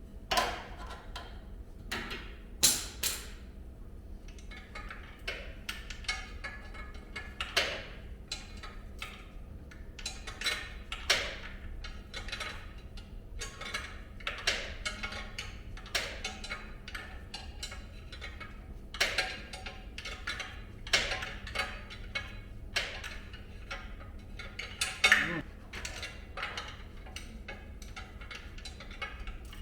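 Hand tools clinking and knocking on metal at an irregular pace, one or two sharp strikes a second, over a steady low hum.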